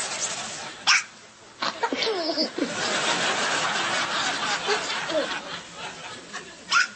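Two sharp hiccups, one about a second in (the loudest sound) and another near the end, with people snickering and laughing between them.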